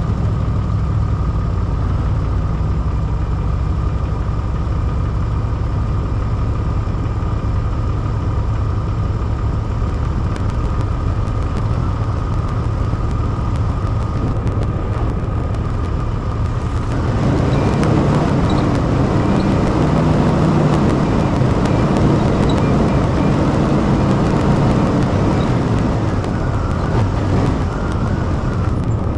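Vehicle engine running steadily with a faint whine. About seventeen seconds in, the sound turns louder and rougher as the vehicle drives through snow.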